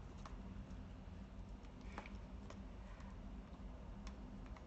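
A few faint, scattered clicks or taps over a low steady hum.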